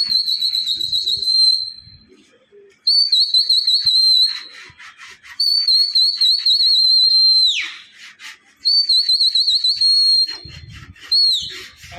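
Five shrill, warbling whistle blasts at one high pitch, each held from under a second to about two seconds, two of them ending in a quick downward slide. It is a pigeon flyer whistling to his flock in the air.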